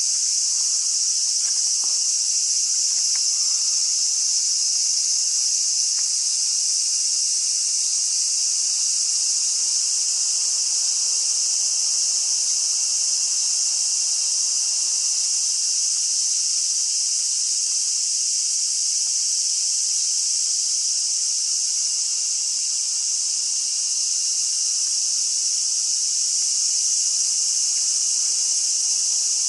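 A dense chorus of cicadas: a steady, high-pitched shrill that holds without a break.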